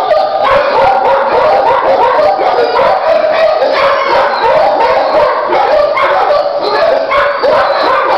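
Many shelter dogs barking at once in a kennel, a loud, continuous din with no pauses.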